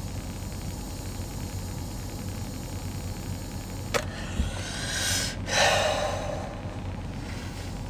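Steady low hum inside a car. A click about four seconds in, then two breathy whooshes a little after, the second louder.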